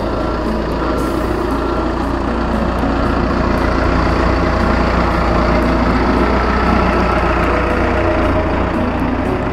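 Large Marine Travelift Mariner M2000 forklift engine running steadily as the machine drives loaded, with short warning beeps repeating.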